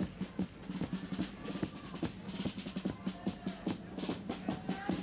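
Cádiz carnival chirigota band playing an instrumental passage: bass drum and snare drum beating a quick, busy rhythm, with guitars under it.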